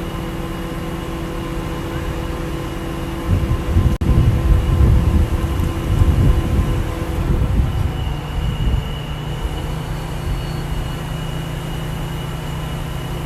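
Heavy diesel engine of a crane running steadily, rising to a louder, rougher low rumble from about three to eight seconds in, as if working under load, then settling back to a steady hum.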